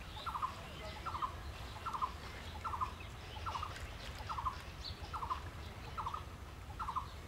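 A bird's short stuttering call, repeated steadily about once every 0.8 seconds, over a low steady rumble.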